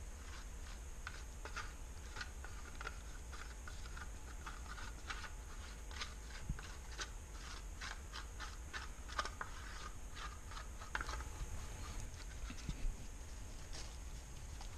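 Light, irregular scratching and clicking of a wooden craft stick spreading paste over a plastic deer ear liner, together with gloved hands handling it, over a steady low hum. The scratching is densest in the middle and thins out near the end.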